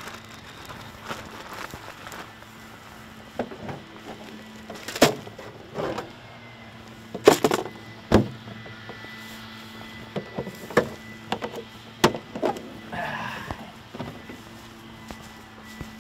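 A plastic picnic cooler being handled, with a string of sharp knocks and clatters as its lid is worked and shut, the loudest about seven to eight seconds in. A faint steady hum sits underneath.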